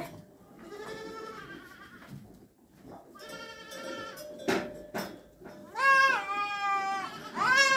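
Goats bleating: four drawn-out, wavering bleats, the loudest about six seconds in, with a couple of short knocks between them.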